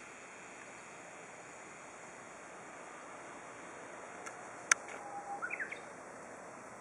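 A Japanese bush warbler sings one short phrase about five seconds in: a held whistle, then a quick flourish of higher rising and falling notes. It comes just after a single sharp click, the loudest sound, over a steady hiss.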